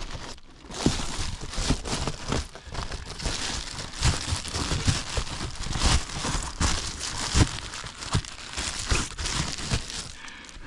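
Foil-faced insulation crinkling and rustling in irregular crackles as it is pushed and tucked back into place by hand.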